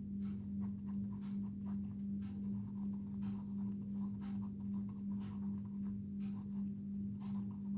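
Cello 0.9 mm mechanical pencil lead scratching across paper in a run of short writing strokes, over a steady low hum.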